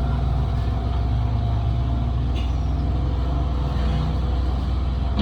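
Heavy diesel construction machinery (excavator and dump truck) with engines running steadily in a low, even drone.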